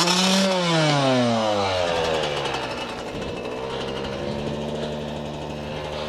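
Yamaha YZ125's single-cylinder two-stroke engine revved sharply. Its revs fall away over about two seconds, then it settles into a steady idle.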